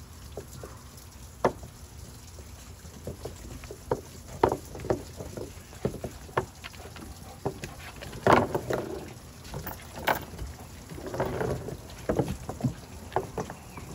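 Irregular taps, clinks and knocks with bouts of rubbing as a wet dog is towel-dried on a wooden deck, its metal chain leash and claws knocking on the boards. The rubbing gets louder twice in the second half.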